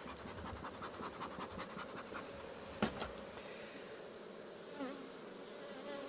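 Honeybees buzzing steadily over an open hive. A run of light ticks sounds in the first two seconds, and two sharp clicks come about three seconds in.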